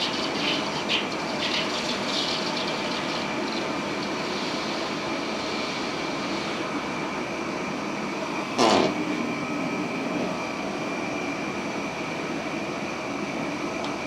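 Steady roar of a homemade gas forge's burner mixed with water running through the quench tank's recirculating pump. A brief loud sound with falling pitch cuts in about nine seconds in.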